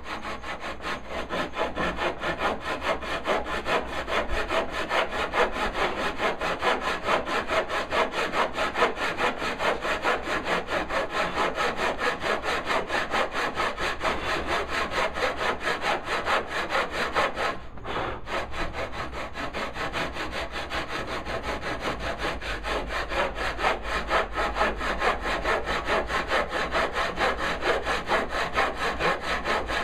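Hand saw cutting into a walnut board with steady, rapid back-and-forth strokes, sawing down a knife wall to form the side of a dado. The strokes stop briefly about 18 seconds in, then carry on.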